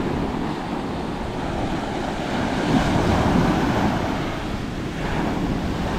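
Surf washing up the beach, with wind buffeting the microphone; the wash swells a little in the middle.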